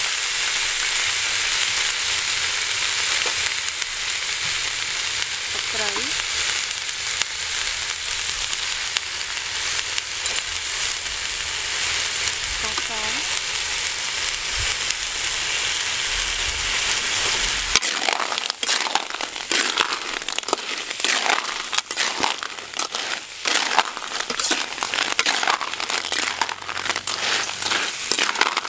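River snails frying in a large metal wok, a steady sizzle. About 18 seconds in the sizzle drops away and the shells clatter and scrape against the pan as they are stirred with a metal spatula.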